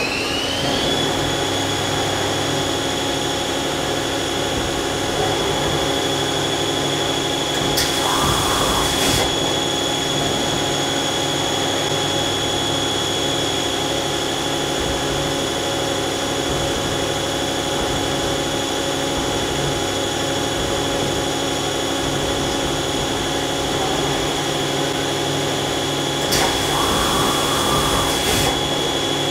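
Mazak CNC lathe running its part program: the main spindle speeds up with a rising whine in the first second, then holds a steady high whine at about 2000 rpm over the machine's running hum. Two short bursts of hiss come about eight seconds in and again near the end.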